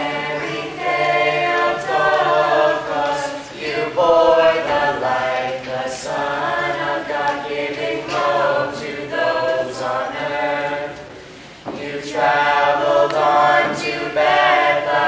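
A choir of young mixed voices singing a Christmas hymn about Christ's birth, in sustained phrases with a brief breath break about two-thirds of the way through.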